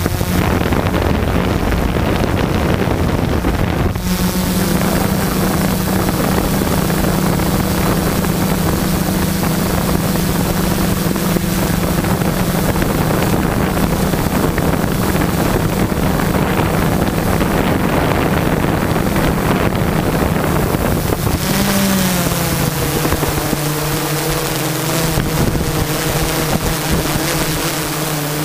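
Quadcopter's Multistar 2212 brushless motors and 12-inch carbon-fibre propellers running with a steady drone, heard through the on-board GoPro, with wind on the microphone. About three quarters of the way through the pitch drops a little and starts to waver as the motor speeds change.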